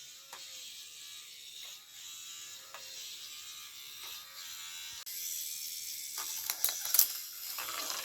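Gravitrax plastic marble run in action: marbles rolling and rattling along the 3D-printed track pieces, with a steady stream of small clicks and clacks that grow louder from about five seconds in.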